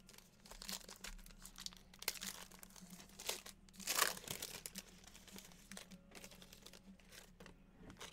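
Foil wrapper of a Spectra football card pack crinkling and tearing as it is handled and opened by hand, in scattered crackles with a louder one about four seconds in.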